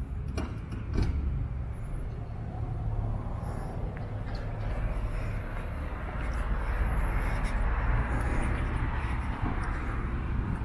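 A car passing on a road, its tyre and engine noise swelling through the middle and easing near the end, over a steady low rumble.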